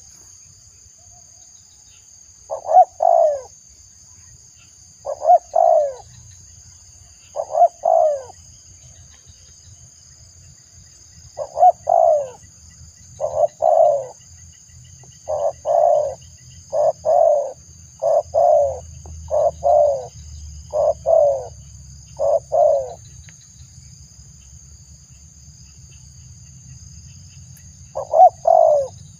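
Spotted dove (tekukur) cooing: short two-note coos repeated every couple of seconds, coming faster from about halfway through, then a pause of several seconds before one more coo near the end.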